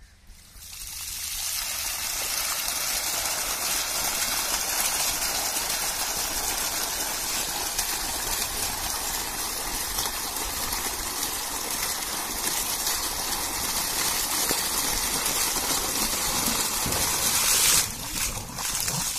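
Water from a diesel-engine-driven centrifugal pump gushing up out of an upright PVC delivery pipe and splashing onto the ground. The flow builds up in the first second or two, then runs steadily.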